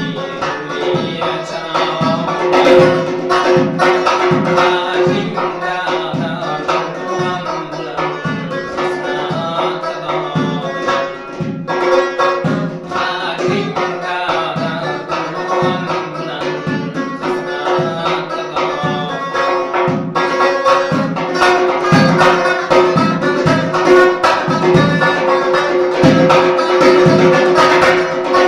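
Uzbek folk music: a doira frame drum played with a steady, dense hand-drum rhythm and jingling rings, under a plucked long-necked lute holding a steady drone, with a man singing.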